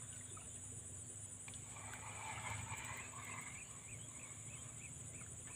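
Faint outdoor insect drone, steady and high-pitched, with a short run of quick repeated chirps a little past the middle.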